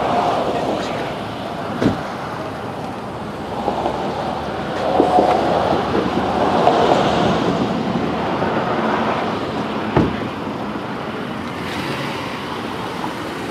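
Wind on the microphone over steady outdoor vehicle noise, with two sharp knocks, about two seconds in and again about ten seconds in.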